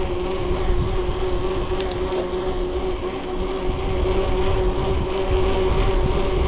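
Heavy bicycle riding along, with a steady droning hum from its rolling wheels and a low rumble underneath, and a brief high tick about two seconds in. The rider takes the hum as a sign that the bike is not rolling easily.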